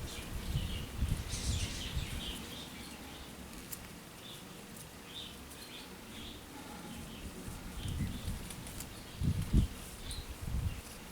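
Small birds chirping on and off in the background, with a few low thumps close by, the loudest about nine and a half seconds in.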